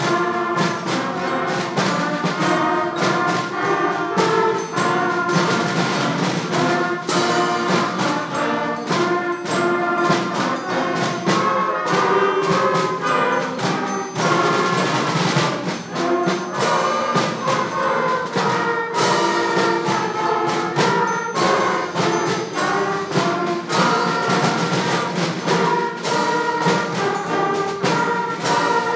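School concert band of flutes, clarinets, saxophones and brass playing a patriotic piece together, with percussion strokes marking the beat.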